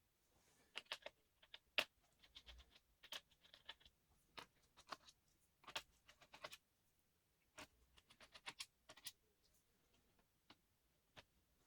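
Faint, irregular clicks and light taps from hands handling a laptop's small plastic and metal parts and tools.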